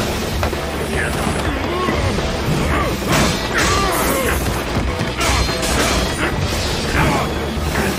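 Anime battle soundtrack: music under repeated sharp clashes and impacts as chainsaw blades strike against swords.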